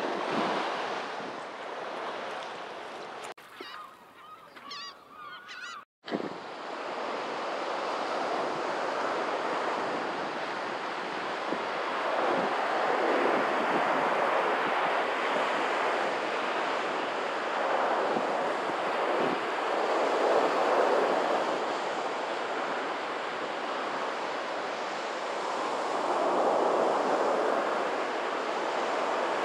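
Surf washing up the beach with wind buffeting the microphone, swelling each time a wave breaks. Near the start, in a quieter stretch, birds call for a couple of seconds before the sound cuts out for an instant.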